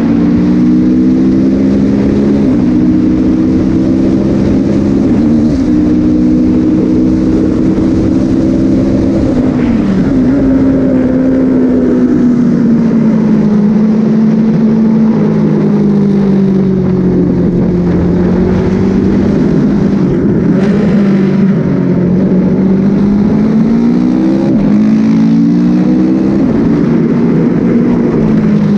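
Sport motorcycle engine heard from onboard at track speed, over a steady rush of wind noise. The engine note holds high, drops sharply about ten seconds in, stays lower through a long leaned-over corner, then climbs again near the end as the bike drives out.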